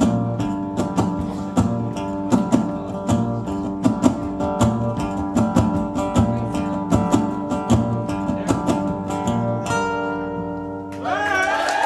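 Acoustic guitar strumming a rhythmic chord pattern to close the song, ending on a held chord that rings out. Crowd cheering and whooping starts near the end.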